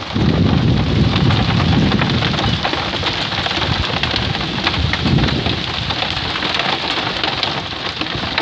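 Heavy rain mixed with hail pelting down, a dense crackle of countless small hits. A low rumble runs under it for the first couple of seconds and returns briefly around five seconds in.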